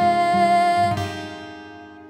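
Woman singing a gospel song over instrumental accompaniment, holding a long sung note that ends about a second in; the music then fades down toward the end.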